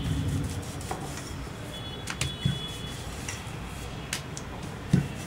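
Hands working oiled balls of parotta dough on a kitchen counter: soft handling noise with a few light clicks and knocks, the loudest a thump near the end.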